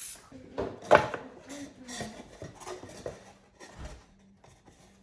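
Light knocks and clatter of wooden parts being handled, with one sharper knock about a second in.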